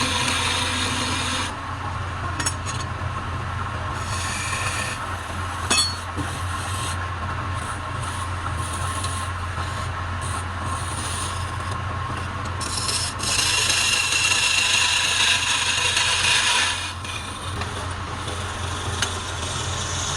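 A wood lathe runs with a steady motor hum while wood is worked on the spinning piece. A rasping, scraping noise swells and fades over the hum, loudest a few seconds from the end, with a short knock about six seconds in.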